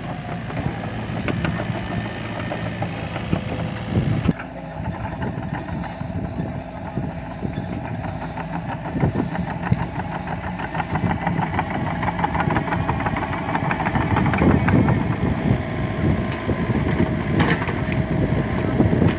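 LiuGong mini excavator's diesel engine running steadily while working, with occasional short knocks and a louder stretch in the second half.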